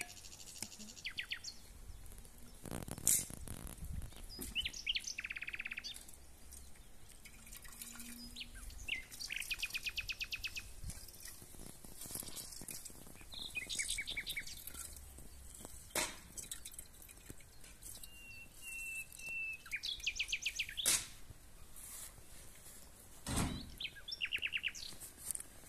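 Small songbirds chirping and singing rapid trills in repeated short phrases, with a few sharp clicks and knocks now and then, one of them a duller thump near the end.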